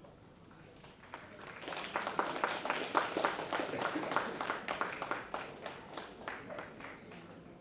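Audience applauding: the clapping starts about a second in, is fullest around the middle and thins out toward the end.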